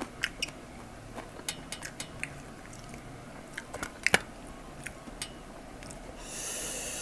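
Close-miked chewing of fried chicken and rice eaten by hand, with scattered sharp crunches and mouth clicks. A soft hiss lasts about a second near the end.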